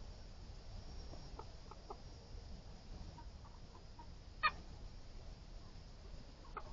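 American Bresse chickens clucking in faint short calls, with one much louder brief call about four and a half seconds in.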